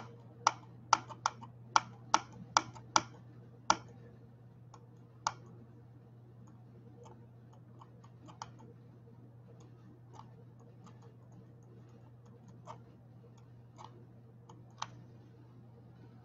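A run of sharp clicks, about two a second and loud for the first few seconds, then fainter and scattered, over a steady low hum.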